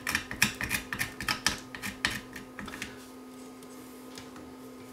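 Quick, irregular clicks and taps of a hand tool against the receiver's circuit boards and metal chassis. They stop about three seconds in, leaving a faint steady hum.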